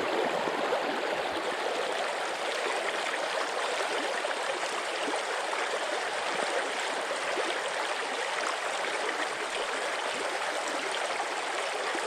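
River water running steadily, an even rushing of flowing water.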